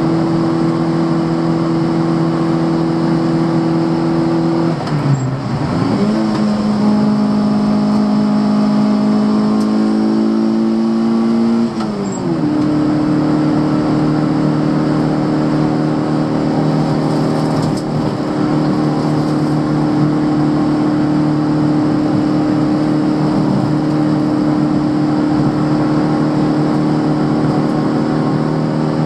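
Fiat Cinquecento 900's small four-cylinder engine running hard under racing load. The engine note holds a steady high pitch, drops sharply about five seconds in and creeps up slowly, then jumps back up about twelve seconds in and holds there.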